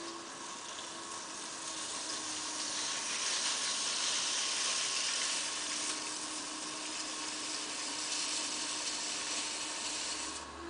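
Metal tool shaving leather-hard clay on a spinning potter's wheel: a steady scraping hiss that swells in the middle and stops abruptly near the end, over the faint hum of the wheel.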